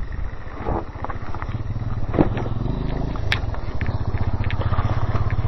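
Yamaha TT600R's big single-cylinder four-stroke engine running with a low, rough pulsing, a little louder after about three seconds. Two sharp clicks, one past the middle and one near the end.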